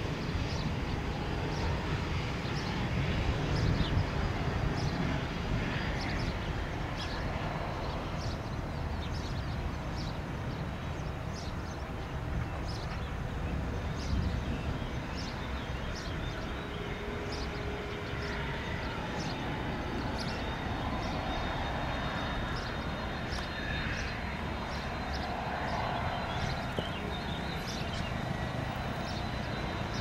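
Cessna CitationJet CJ2's twin Williams FJ44 turbofans at low taxi power, heard from a distance as a steady low rumble with a faint high whine. Short high chirps repeat about once or twice a second throughout.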